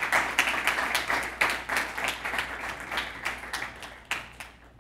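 Audience applauding, many hands clapping at once, thinning out and dying away near the end.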